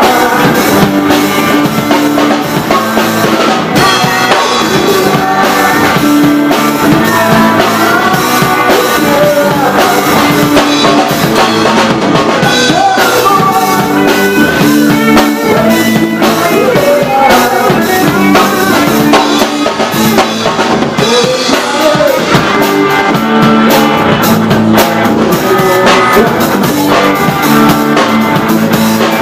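Live rock music: a man singing into a microphone over his own electric guitar, with drums keeping a steady beat throughout.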